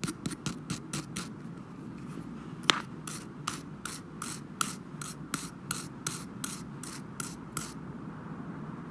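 Small wire brush scrubbing a tiny metal screw held in tweezers, in quick scratchy strokes about three a second. There is a short pause with one sharper click, and the scrubbing stops near the end.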